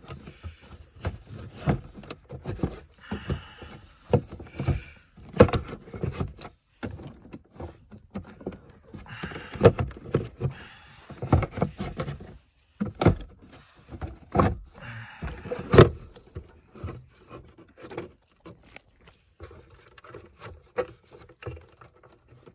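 Irregular plastic clicks, knocks and rattles, with a few short scrapes, as a Mercedes W220 S-Class glove box is worked loose from the dashboard.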